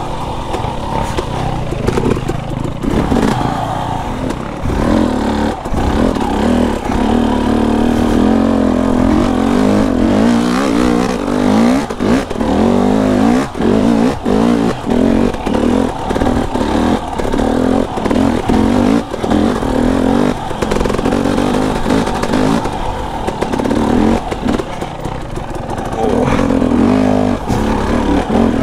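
KTM enduro dirt bike engine ridden slowly over technical single track, the throttle worked on and off so the revs rise and fall over and over, with a run of quick blips and cut-offs in the middle.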